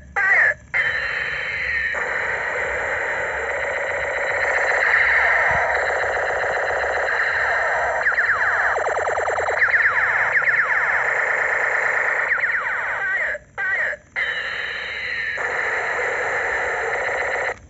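Battery-powered light-up Iron Man toy pistol with a spinning propeller, its sound chip playing loud electronic siren-like sound effects with sweeping, warbling tones. The sound breaks off briefly just after the start and twice about thirteen to fourteen seconds in, as the trigger is let go and pressed again.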